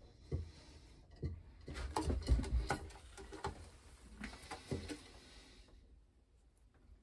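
Scattered light taps, knocks and rustles in a wooden pigeon nest box, with a cluster of low thumps about two to three seconds in and a short hiss just before it goes quieter near the end.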